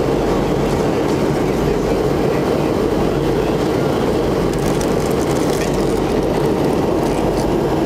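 Steady, loud cabin roar of an MD-88 airliner in flight, the drone of its rear-mounted Pratt & Whitney JT8D turbofans mixed with airflow noise, heard from a passenger seat.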